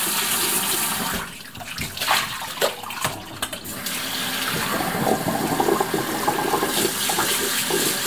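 Water running and splashing as rice is washed by hand in a colander. The water sound drops away for a few seconds about a second in, then runs steadily again.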